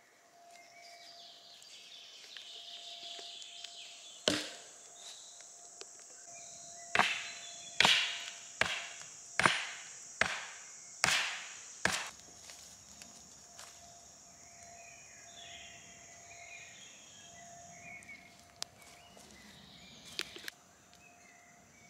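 Sharp wooden knocks as a wooden stake is struck: a single blow, then a run of seven about a second apart. A steady high insect buzz runs behind and fades out near the end.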